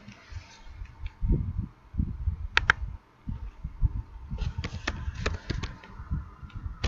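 Computer mouse clicks and keyboard keystrokes: a pair of sharp clicks about two and a half seconds in, then a quick run of taps between about four and a half and five and a half seconds in, over dull low thumps.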